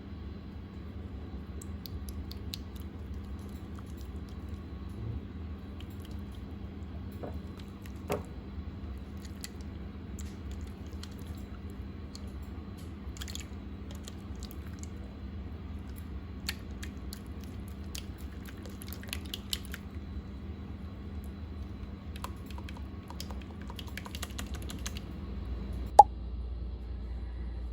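Slime being handled and squeezed, giving scattered small sticky clicks and crackles, with one sharper click near the end.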